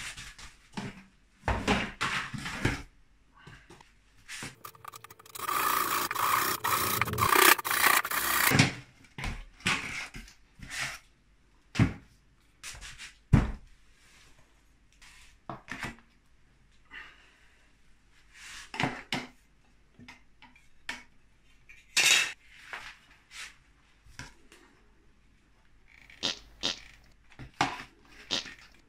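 Work sounds of PVC pipe fittings being handled on a plywood board: scattered knocks and clicks, with a few seconds of steady rubbing and scraping about five seconds in.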